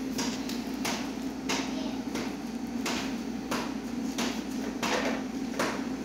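Gaggia Babila espresso machine heating up for hot water: a steady low hum with sharp, evenly spaced clicks about one and a half times a second.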